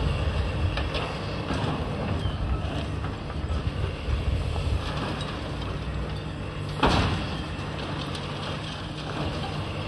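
Komatsu high-reach demolition excavator's diesel engine running steadily while the machine breaks up a concrete building, with scattered knocks and clatter of breaking concrete and rubble. One loud crash of falling debris comes about seven seconds in.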